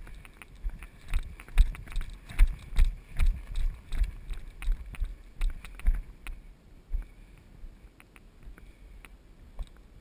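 Footsteps of a player moving quickly on foot, with his gear jostling against a body-mounted camera: a steady run of heavy thumps, about two or three a second, that eases off about seven seconds in.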